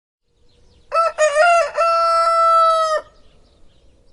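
Rooster crowing once: a cock-a-doodle-doo of a few short broken notes leading into one long held note, about two seconds in all, cut off sharply.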